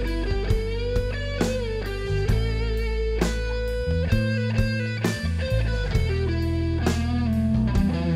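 Rock'n'roll band playing: an electric guitar line over bass and drums with regular drum hits.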